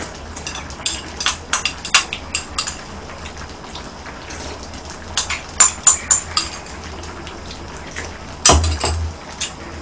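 A person eating stew from a small bowl with a metal spoon: the spoon clicks against the bowl in quick runs of ticks, with slurps of broth and chewing. About eight and a half seconds in comes one louder knock with a dull thud.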